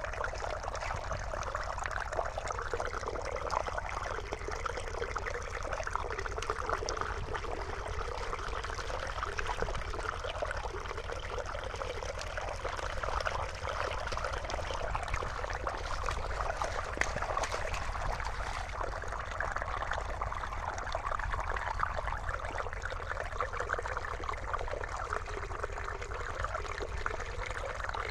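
Shallow water running and trickling steadily over rock and gravel, with hands stirring and rubbing wet chromite gravel in it.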